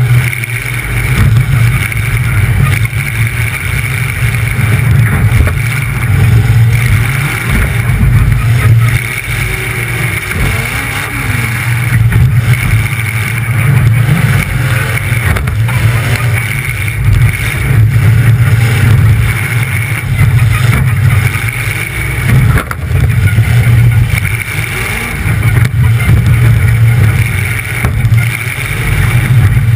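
Demolition derby car's engine running loud through short open exhaust stacks poking up through the hood, surging and easing off again and again with the throttle.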